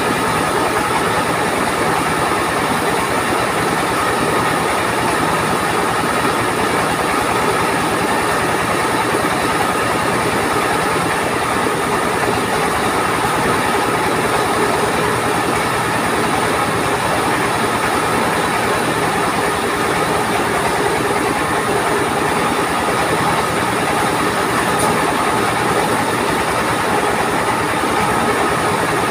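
Engine-driven mobile rice mill running: the engine and its belt-driven husking and polishing machines make a loud, steady mechanical noise that holds without change.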